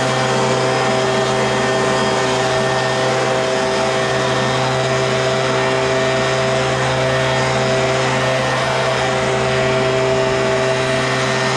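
Leaf blower running steadily at constant throttle, a loud engine drone with a rush of blown air, driving litter out of the grass.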